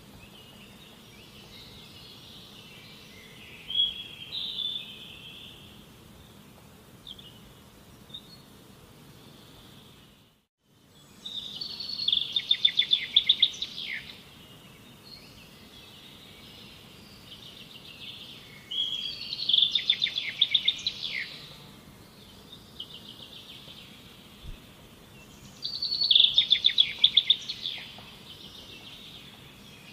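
Birds calling: bursts of rapid, high-pitched chirping trills that come back about every seven seconds, over a steady faint background hiss. The sound cuts out completely for a moment about ten seconds in.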